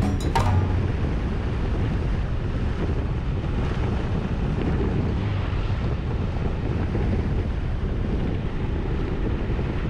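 Steady wind noise rushing over the microphone of a camera riding along on a moving bicycle. A percussive music track cuts off about half a second in.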